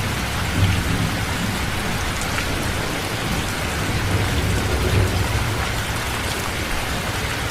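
Steady heavy rain, an even hiss of drops with a constant low rumble underneath.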